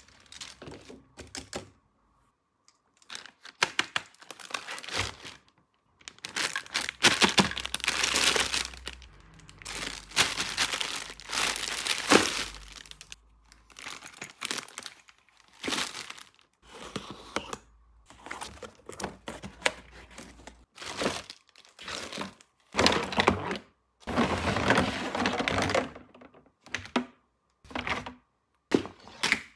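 Packaging crinkling and rustling by hand in irregular bursts, between short clicks and knocks of handled parts, as a toy playset is unboxed.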